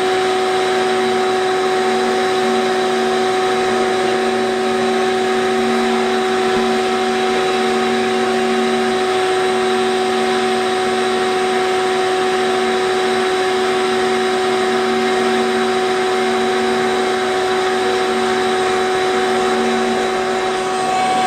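Shop vacuum running steadily: a constant motor whine over a rushing hiss, unchanging throughout.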